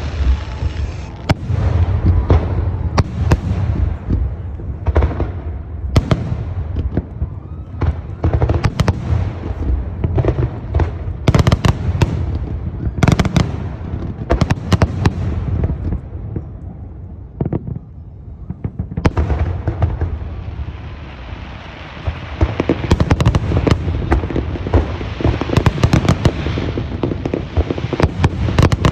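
Fireworks display: a continuous barrage of booming shell bursts and sharp bangs over a deep rolling rumble, easing off for a few seconds in the middle, then building again into dense crackling volleys.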